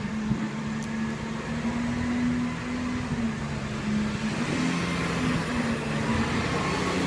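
Street traffic noise: a steady low engine drone, with the rushing of a vehicle going past swelling up about four to six seconds in.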